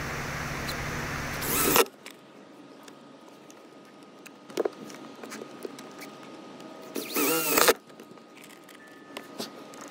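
A cordless drill whirs briefly about seven seconds in, its pitch rising and falling, among scattered light clicks and taps of hands working on sheet metal. A steady background noise ends abruptly after a short burst about two seconds in.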